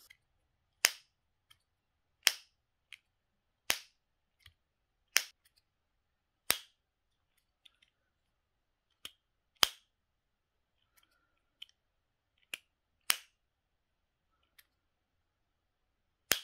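Lid of an Apple AirPods (2nd generation) charging case being snapped shut and flipped open over and over. About eight loud, sharp, high clicks, roughly every one and a half seconds at first and then further apart, with fainter clicks in between.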